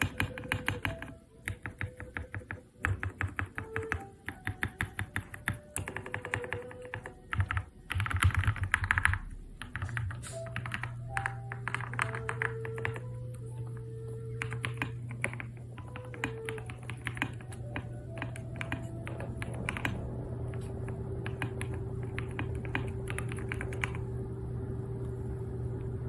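Typing on a Monsgeek M7 mechanical keyboard with lubed WS Vertex V1 switches and SA-profile keycaps. The key presses come as rapid runs of clicks in bursts, with short pauses between them.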